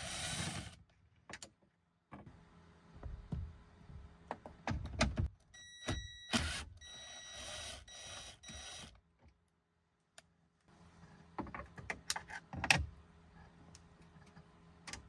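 A ratchet on a long extension backing out the 7 mm screws at the right side of a 2003 Ford F-150 instrument cluster. A short run of whirring comes right at the start, and another of about three seconds a little before the middle. A few sharp clicks and knocks near the end come as the tool and screws are handled.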